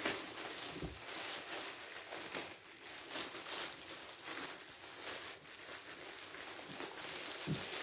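Clear plastic bag crinkling and rustling as hands handle it, with many small crackles.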